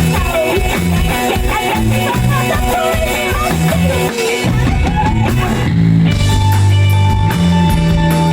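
Rock music from a band with electric guitar, bass and drums. About halfway through the arrangement changes, with long held bass notes and a sustained high note carrying on to the end.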